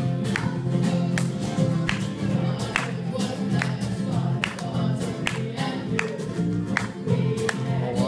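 Live band music with a group singing over guitar, driven by a sharp beat that lands a little more than once a second.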